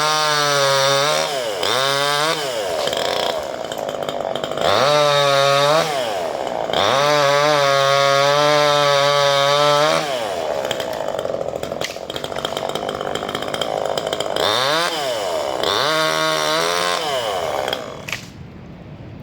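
Chainsaw engine revved again and again, each time rising to a steady high pitch for one to three seconds and falling back toward idle, as it cuts branches off a pine. The engine cuts off near the end.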